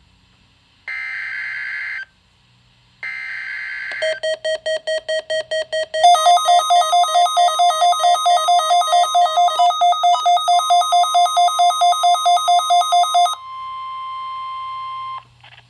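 NOAA Weather Radio Required Weekly Test alert signals: two short bursts of buzzing SAME digital header data, then an alarm beeping rapidly, about five beeps a second, that cuts off about thirteen seconds in and gives way to a steady tone for a couple of seconds.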